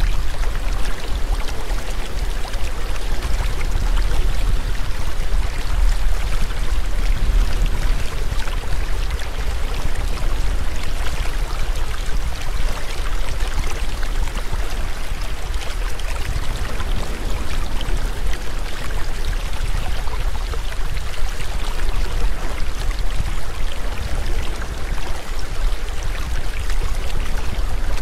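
Steady rushing water with a strong deep rumble underneath, even and unbroken throughout.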